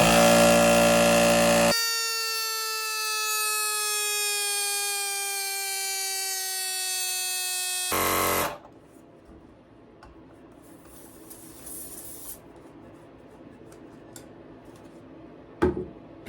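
Portable air compressor, set for 30 psi, running to inflate a bicycle tire: a loud buzzing motor whose whine sinks steadily in pitch as the pressure builds, stopping about eight seconds in. A faint hiss and a single sharp click follow near the end.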